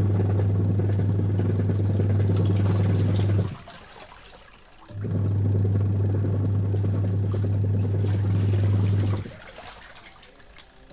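Factory machine running with a steady low hum in on-off cycles: it runs for about three and a half seconds, stops for about a second and a half, runs again for about four seconds, then stops near the end, leaving a quieter background noise.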